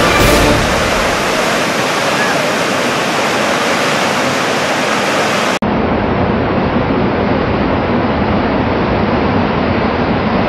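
Loud, steady rushing of big whitewater rapids, with a trailing end of music in the first half-second. About halfway through, a sudden cut switches to a duller, deeper rush of the same water.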